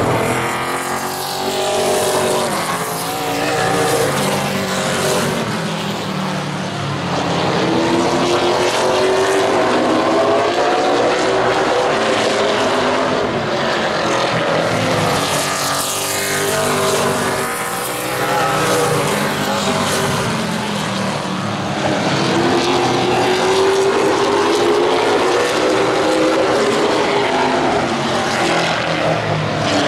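Super late model stock cars' V8 engines running in a pack around a short oval, several cars passing at once with their engine notes rising and falling.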